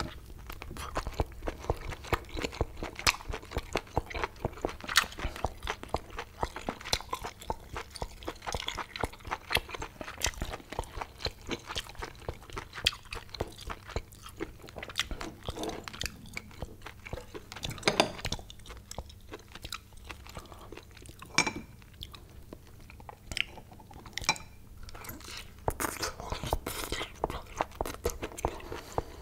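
Close-miked biting and chewing of a whole boiled octopus: a dense, continuous run of short chewing clicks and bites.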